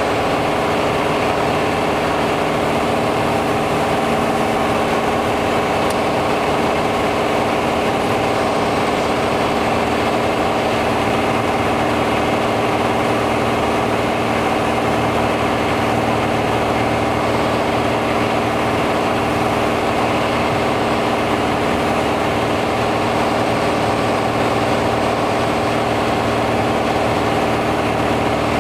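Piper Arrow's piston engine and propeller droning steadily, heard inside the cockpit with rushing air noise beneath it.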